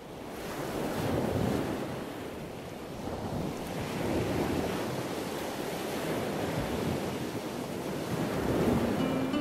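Ocean surf washing in, swelling and ebbing in about three slow waves.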